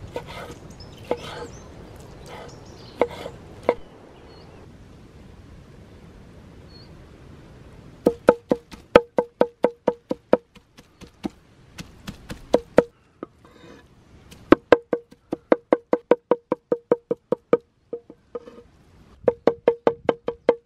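Large knife chopping lamb meat on a thick wooden board, each stroke a sharp wooden knock. A few separate cuts at first, then after a quiet few seconds rapid mincing chops, about four a second, in runs broken by short pauses.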